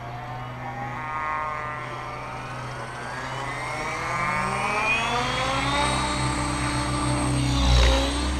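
Blade 700X electric RC helicopter spooling up: its motor and rotor whine rises steadily in pitch over several seconds, then holds level as the helicopter lifts off. A brief, loud low rumble comes near the end.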